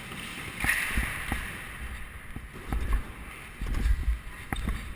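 Scooter riding: a low rolling rumble with wind buffeting the microphone, broken by several sharp clacks, the loudest near the end.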